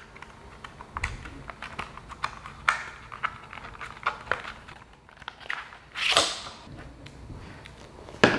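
Hands opening a cardboard air-freshener box: scattered taps, scrapes and clicks of the paperboard, a louder rustle about six seconds in, and a sharp click near the end.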